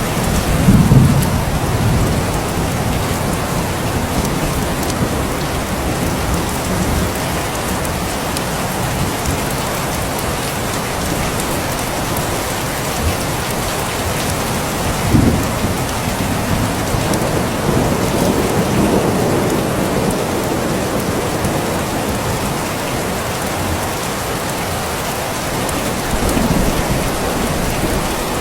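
Steady rain falling, with several low rolls of thunder, the loudest about a second in and a short one around the middle.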